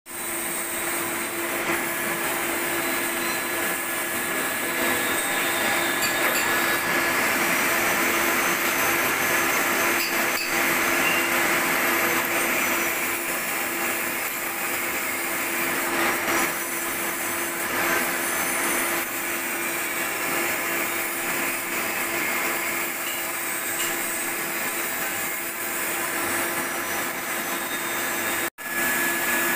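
Vertical milling machine running, its spinning cutter milling a flat on a round blank to form a hexagon nut: a steady motor hum under an even hiss of cutting, cutting out briefly near the end.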